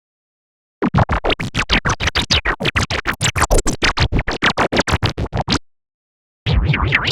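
Electronic filter sweep sample: a synthesized sound pulsed about six times a second, each pulse swept through the filter, stopping abruptly after about five seconds. After a short gap a second, lower-pulsing sweep sample starts near the end.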